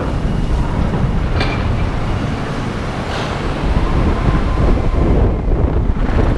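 Spinning roller coaster car running along its steel track, its wheels giving a steady loud rumble, with wind buffeting the microphone.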